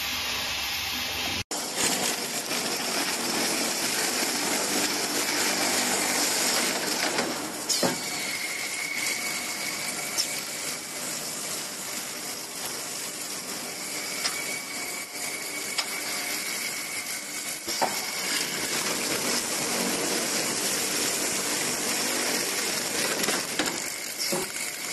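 PE pipe hole-punching machine running on plastic pipe: a steady mechanical hiss broken by a few sharp clicks, with a thin high whine coming and going in the later part. The sound changes abruptly about a second and a half in.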